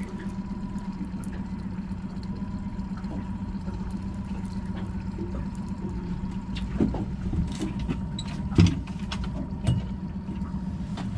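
Outboard motor running with a steady hum, with wind rumbling on the microphone and a few sharp knocks on the boat, the loudest about two-thirds of the way through.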